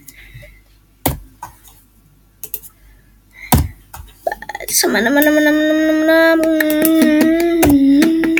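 Computer keyboard and mouse clicks tapping now and then, then just under five seconds in a boy's voice sings one long held note, dipping in pitch briefly near the end, while the clicks go on over it.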